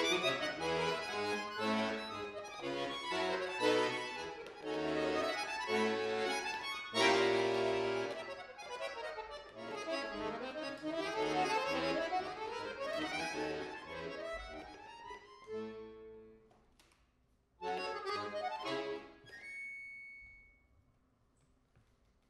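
Bayan (chromatic button accordion) playing fast runs and chords that thin out and fade, then after a short pause one loud final chord about 17 seconds in, released after under two seconds to end the piece.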